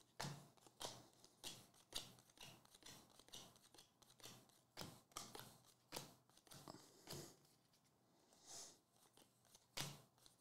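Faint clicks and slides of glossy baseball cards being thumbed one by one from the front to the back of a stack, about one every half second, with a short pause near the end.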